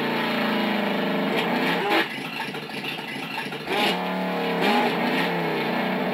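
Electronic engine-revving sound effect from the Mattel Ultimate Justice League remote-control Batmobile, played while the toy stands still. One rev winds down over the first two seconds and a second rev rises about four seconds in.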